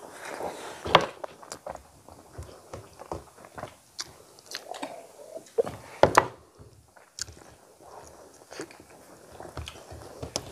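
Close-miked eating sounds of two people eating rice and chicken curry with their hands: chewing and wet mouth smacks throughout, with a sharp loud click about a second in and another at about six seconds.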